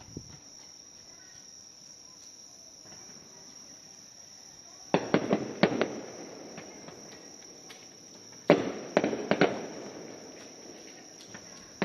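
Aerial fireworks bursting: a sharp bang about five seconds in followed by a quick run of crackling reports, then another bang with more crackles about three and a half seconds later. A steady high-pitched insect trill runs underneath.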